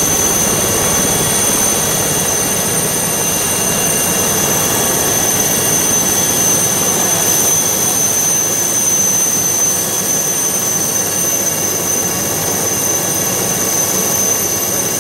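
Helicopter turbine engine running: a steady high-pitched whine over a dense, even rushing noise, with no change in pitch or level.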